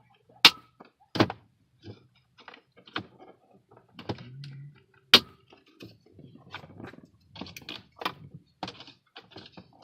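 A string of irregular sharp clicks and knocks from hands handling hard plastic car-interior parts and connectors. The two loudest clicks come about half a second in and about five seconds in.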